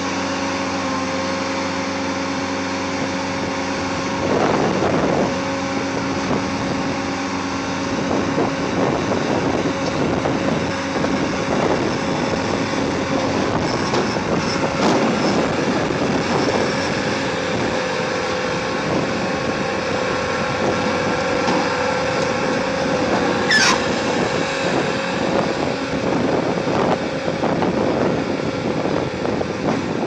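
Bobcat skid-steer loader's diesel engine running at a steady speed, working harder in rougher, louder stretches, with wind on the microphone. A short sharp squeal sweeps up in pitch about three-quarters of the way in.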